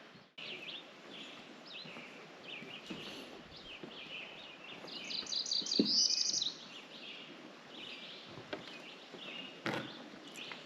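Songbirds chirping and calling, with a louder rapid trill of repeated notes about halfway through; a single sharp knock near the end.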